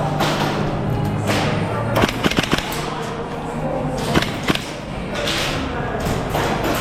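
Airsoft guns firing: a quick run of four or five sharp snaps about two seconds in, then two more about four seconds in.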